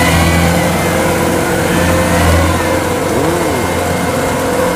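Kubota DC105X combine harvester's diesel engine running steadily.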